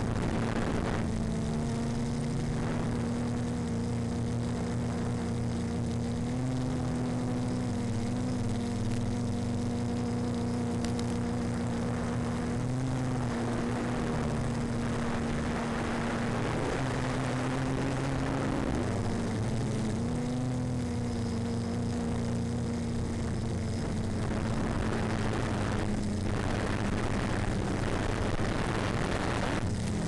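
Small RC aircraft's motor and propeller droning steadily in flight, its pitch dipping and rising a few times, over a constant rush of wind noise.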